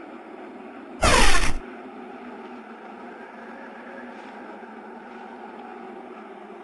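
A steady background hum, with one loud added weapon sound effect about a second in: a half-second burst whose pitch sweeps downward.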